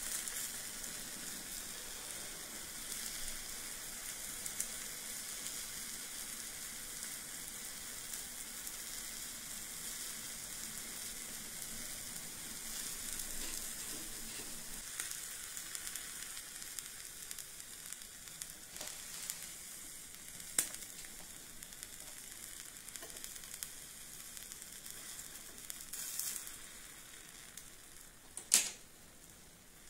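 Steaks sizzling on the grate of a miniature charcoal grill: a steady hiss with a few sharp pops of fat, the loudest near the end, as the sizzle eases off.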